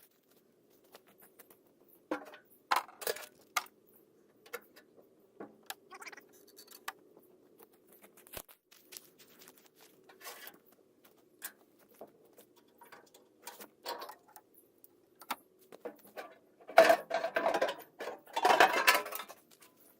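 Small metal clinks and knocks as the retaining pins are pulled and the cover is worked off a tractor three-point-hitch wood chipper, with a louder rattling clatter near the end.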